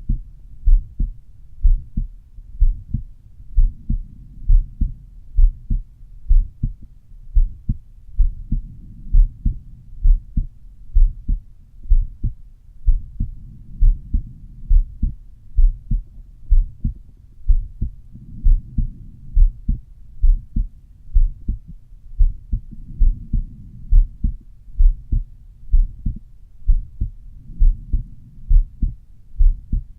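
Human heartbeat heard at the pulmonary valve area of the chest: a steady, regular series of low thuds, a little faster than one beat a second.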